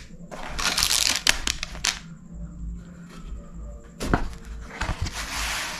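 Crinkling and rustling of a kraft cardboard takeaway box as it is handled, its rubber band taken off and the lid opened. There are dense crackly rustles for the first couple of seconds, a single sharp snap or click about four seconds in, and steady rustling near the end.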